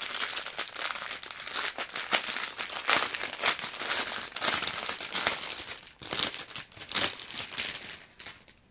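A packet of embroidery threads crinkling as it is handled and opened, with many short, irregular crackles that die away near the end.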